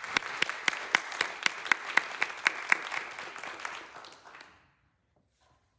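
Congregation applauding, with one close pair of hands clapping sharply about four times a second over the general clapping; the applause dies away about four and a half seconds in.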